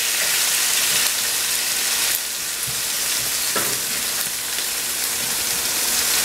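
Tomato and onion chunks sizzling in hot oil in a stainless steel skillet, a steady frying hiss, with a wooden spoon stirring through them at the start.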